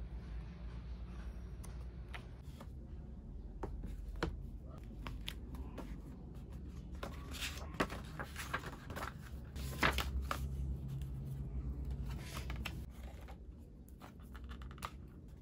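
Paper pages of a hardbound planner and a notebook being flipped and handled: a run of short rustles and light ticks, thickest and loudest in the middle, over a steady low room hum.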